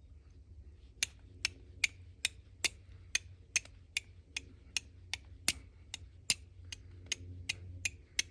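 Carbon-steel fire striker struck down the edge of a flint, a rapid series of sharp clicks at about two to three a second, starting about a second in. It is a flint-and-steel fire-lighting attempt that throws only a couple of sparks.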